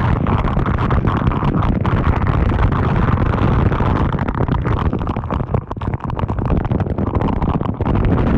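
A large waterfall pouring down close by: a loud, steady rush of falling water, heaviest in the low end.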